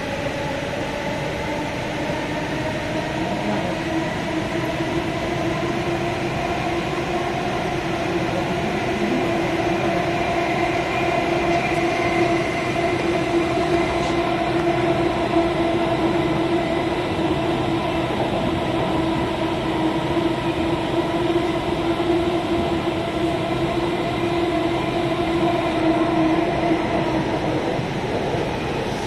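Delhi Metro electric train running on an elevated track, heard from inside the coach: a steady rumble of the running gear with a held whine over it, which dies away near the end.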